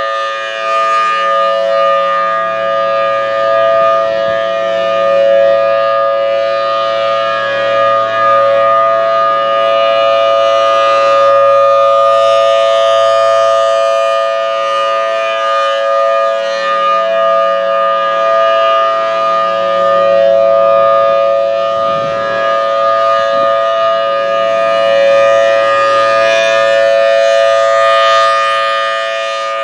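Federal Signal Thunderbolt 1000T outdoor warning siren sounding a steady, held wail at full pitch during a test, several tones sounding together. Its loudness slowly swells and fades every several seconds as the rotating siren head sweeps past.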